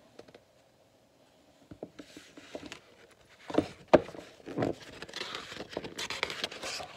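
Pages of a large picture book being handled and turned: paper rustling with a few sharp knocks about four seconds in, and denser rustling near the end, after a quiet first two seconds.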